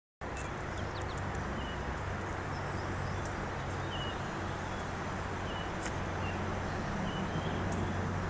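Steady rushing noise of a bicycle moving along a gravel towpath, with wind on the microphone, and birds chirping briefly several times over it.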